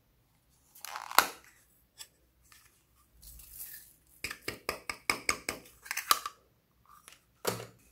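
Sharp clicks and taps of hands handling a hollow plastic toy case, a few at first, then a quick run of a dozen or so in the middle, and one last louder tap near the end.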